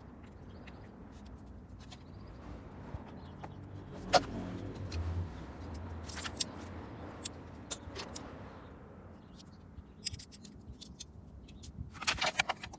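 Metal tools and parts clinking and knocking during hands-on work on a motorcycle engine, over a low steady hum. The loudest knock comes about four seconds in, and there is a quick run of clinks near the end.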